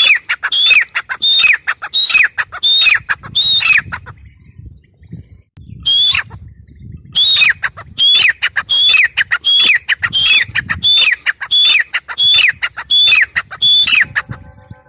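Grey francolin calling: a loud run of high-pitched notes, each falling sharply in pitch, about three every two seconds. The run breaks off about four seconds in, gives one lone note during a pause of about three seconds, then starts again.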